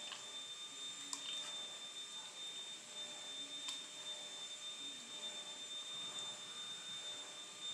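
Faint water sloshing as a plastic gold pan is dipped and swirled in a tub of muddy water, over a steady background hiss with a thin high whine. There are two light clicks, about a second in and near four seconds in.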